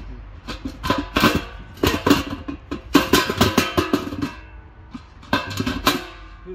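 Cut halves of a stainless steel beer keg clanking together as the top is fitted back onto the bottom, a dozen or so irregular metal knocks, each leaving the keg ringing.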